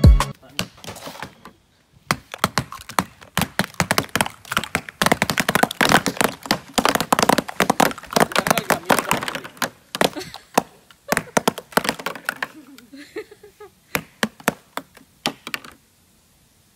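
Dozens of Alka-Seltzer film-canister rockets popping off one after another, as the fizzing tablets build gas pressure in the watery paint until the lids blow. The sharp pops start about two seconds in, come thick and fast for several seconds, then thin out to scattered pops near the end.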